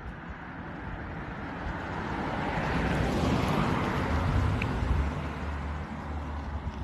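A vehicle driving past on the road, its engine and tyre noise growing louder to a peak about halfway through and then fading.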